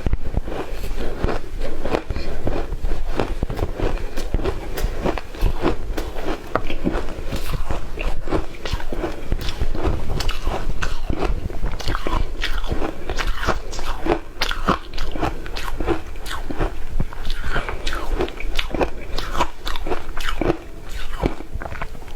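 A person biting and chewing shaved ice close to the microphone: a steady, dense run of small crunches.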